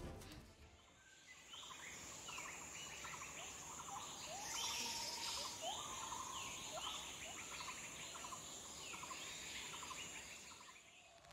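Faint chorus of bird calls, jungle ambience: many overlapping short chirps, trills and rising whistles, starting about a second and a half in and fading out just before the end.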